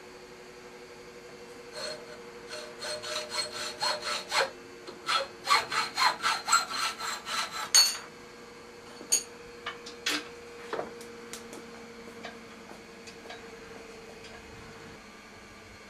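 Hacksaw cutting a thin steel pipe clamped in a bench vice: quick back-and-forth strokes, about three a second, starting about two seconds in, with a brief break, and stopping about halfway through. A few light clicks and knocks follow as the saw and pipe are handled.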